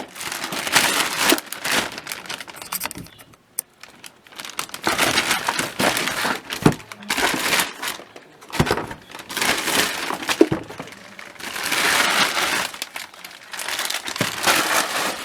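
A shipping package being opened by hand: bursts of crinkling and rustling packaging, with a few sharp clicks, stopping briefly about three seconds in.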